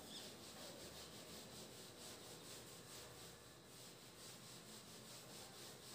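Faint rubbing of a whiteboard being wiped clean by hand.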